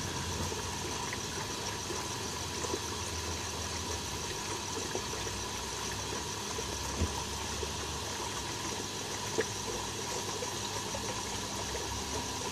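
Steady hum of an aquaponics pond's water pump with water running and bubbling, with a couple of faint clicks.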